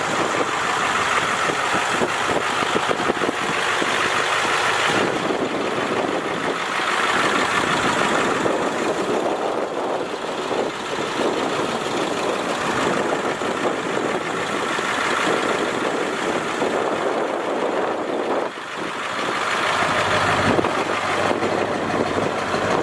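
The 7.3-litre diesel engine of a 1957 Ford B500 short bus running steadily as the bus drives by. It dips briefly near the end and then builds again.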